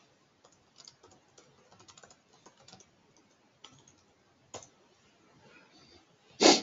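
Light, irregular typing on a computer keyboard: scattered faint key clicks, with one short, louder burst of noise near the end.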